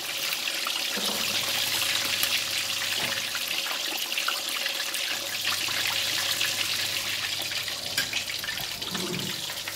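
Whole black pomfret deep-frying in a wok of hot oil: a steady sizzle with fine crackling.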